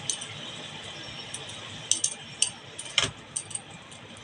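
Kitchen utensils clinking and knocking against cookware as fried chicken is added to the dish: several sharp clinks, the loudest about three seconds in, over a steady hiss.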